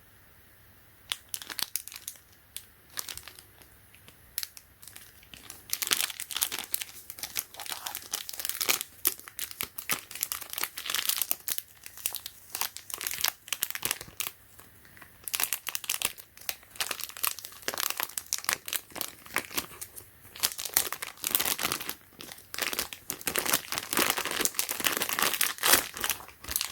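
Packaging crinkling and rustling as it is handled and unwrapped, with some tearing. The crackle starts about a second in and keeps on in uneven bursts.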